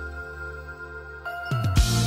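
Background music: soft held electronic chords, then a beat with heavy kick drums comes in about one and a half seconds in.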